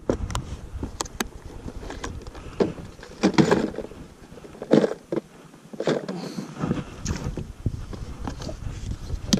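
Handling noise from fishing tackle: scattered clicks and rustles of plastic tackle boxes and clothing rubbing near the microphone, over a low rumble that drops out for a couple of seconds midway.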